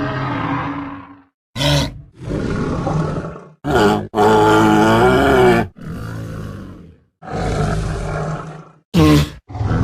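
Einiosaurus dinosaur sound effects: a string of separate roars and growls, about eight in all, with short gaps between them. The loudest and longest call comes about four seconds in, lasts over a second and a half, and wavers in pitch.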